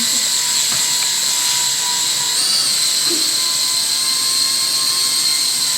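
Small propeller of a flying pixie toy spinning, a steady high-pitched whirring whine while it hovers, its pitch wavering briefly about two and a half seconds in.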